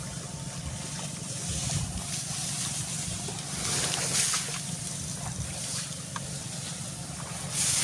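Tall grass swishing and rustling as people wade through it, with louder surges of swishing about four seconds in and near the end, over a steady low rumble.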